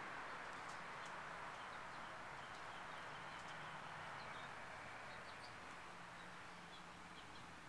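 Faint outdoor ambience: a steady soft hiss with scattered brief, high, faint chirps of distant small birds.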